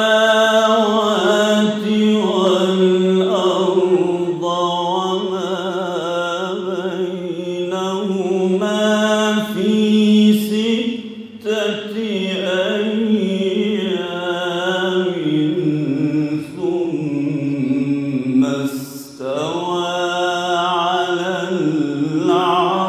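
A man reciting the Qur'an in the melodic, chanted style, drawing out long ornamented notes whose pitch wavers and slides. He breaks briefly for breath about 11 and 19 seconds in.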